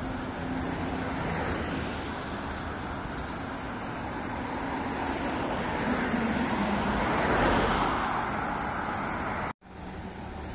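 Shanghai Transrapid maglev train passing: a steady rushing noise with a low hum that swells to its loudest about seven seconds in as the hum drops slightly in pitch. The sound cuts out for an instant near the end and comes back quieter.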